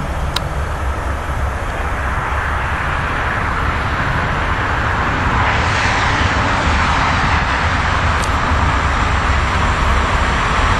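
DB Class 185 electric locomotive and its freight wagons approaching on the rails: a steady rushing rumble that grows louder and brighter from about halfway through as the train comes closer.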